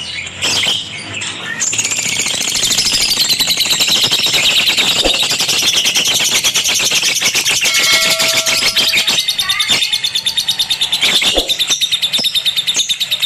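Lovebird chattering in a long, continuous run of rapid high chirps that starts about a second and a half in, with a short steady tone just past the middle.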